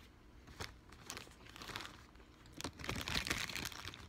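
Food packaging crinkling as it is handled: a few short crackles, then a denser, louder stretch of crinkling lasting about a second in the second half.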